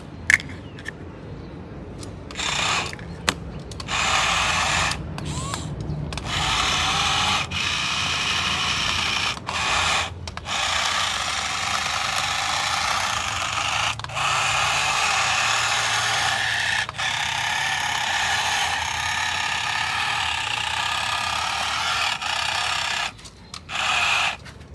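A remote-control toy's small electric motor and plastic gearbox whirring, switched on and off in runs of a few seconds with short pauses between.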